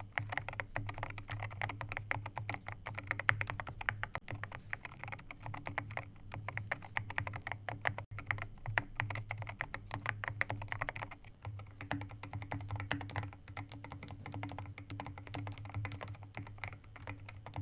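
Continuous typing on wooden-case MU01 and MU02 mechanical keyboards fitted with Echo Rosewood switches and rounded MOA-profile keycaps, a rapid, irregular run of keystrokes with a deep, soft 'thock'. There is a short break about eleven seconds in.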